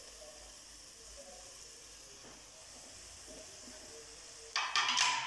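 Chicken and shredded vegetables frying gently in a metal karahi, a faint steady sizzle. Near the end, a louder, brief noise of the metal spatula stirring in the pan.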